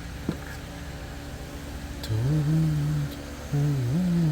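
A man humming with his mouth closed: two low held notes of about a second each, the second bending in pitch, over a steady low background hum. A single light click comes just before.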